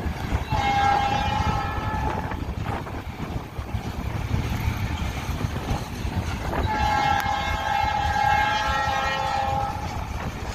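Loaded coil cars of a freight train rolling past with a steady low rumble, while a locomotive horn sounds two long blasts, a shorter one near the start and a longer one after the middle.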